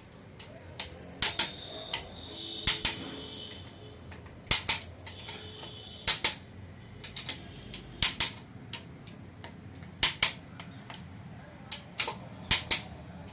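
Click-type torque wrench giving sharp double clicks about every two seconds as each cylinder-head bolt reaches the set torque of 40 lb-ft.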